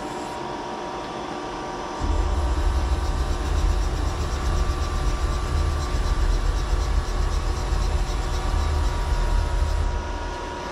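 CNC mill's Z axis driving the spindle head up: a loud, steady low rumble from the axis servo drive starts about two seconds in and stops shortly before the end. Under it runs the machine's steady background hum.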